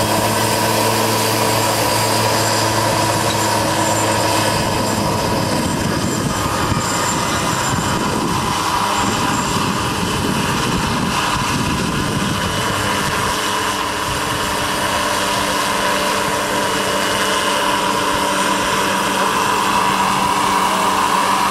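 Scale model Hughes 500 radio-controlled helicopter running and lifting off into a low hover: a steady high-pitched tone over the rushing of the rotor blades.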